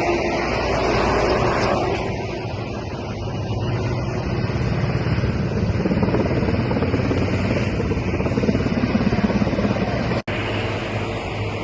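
Steady engine-like rumble over a noisy hiss, broken by a brief gap about ten seconds in.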